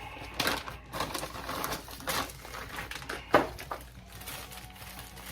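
Irregular clicks, light knocks and rustling as suspension parts are picked out and handled by hand, the lower ball joints being found for the control arm.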